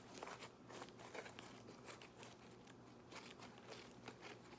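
Thick DIY clay slime being squished and pulled in the hands, giving faint, irregular little clicks and crackles.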